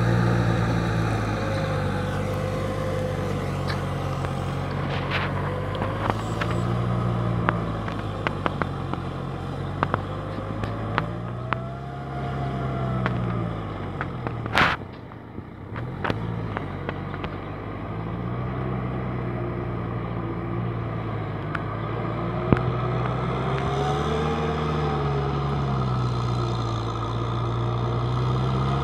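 Kubota M6040 SU tractor's diesel engine running under load as it works a flooded paddy, its pitch rising and falling repeatedly. Scattered light clicks, and one sharp crack about halfway through.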